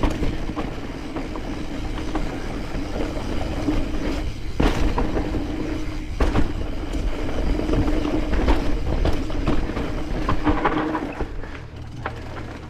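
Mountain bike rolling down a steep, rocky trail: tyres crunching over rock, chain and frame rattling, with sharp knocks from the bigger hits, about four and a half and six seconds in. Wind rumbles on the microphone underneath.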